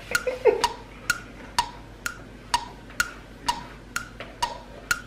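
Steady clock-like ticking, about two crisp, wooden-sounding ticks a second, evenly spaced.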